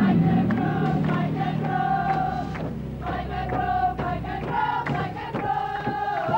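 Background music: a melody of long held notes over a low sustained note that drops out about halfway.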